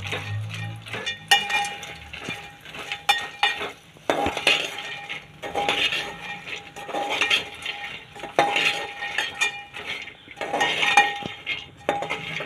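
Steel ladle stirring makhana (fox nuts) in an aluminium pot as they fry lightly in a little ghee. Repeated scrapes and clinks of metal on metal come every second or two, with a brief ringing of the pot on the stronger strokes.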